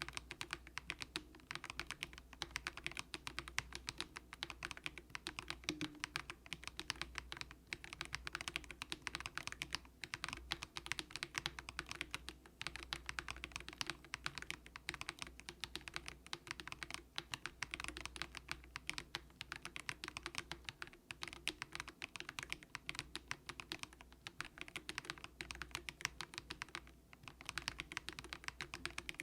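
Continuous fast typing on a Monstargear Ninja87 mechanical keyboard with a plastic case and light, low-force Haimu Sea Salt switches. It is a dense, unbroken stream of key clacks.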